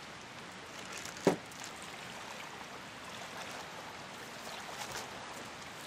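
A thrown stone plunks into the lake once, about a second in, over a steady hiss of lapping lake water.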